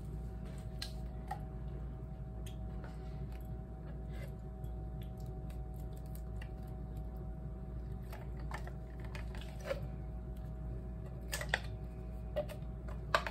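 Spatula scraping and tapping inside a metal can to work out stuck apple pie filling: scattered light clicks, with a few sharper taps near the end, over a steady low hum.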